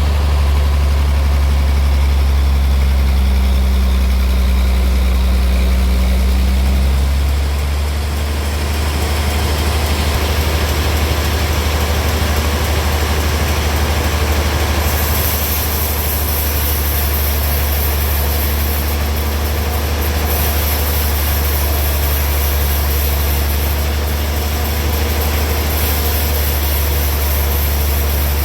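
Sawmill machinery running steadily with a loud low hum. The level dips slightly about seven seconds in, and a high hiss joins about halfway through and keeps on.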